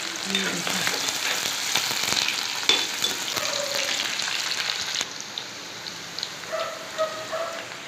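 Sliced onions sizzling in hot oil in a metal kadhai, stirred with a metal ladle that clicks and scrapes against the pan. The frying stops abruptly about five seconds in, and a few short high calls follow near the end.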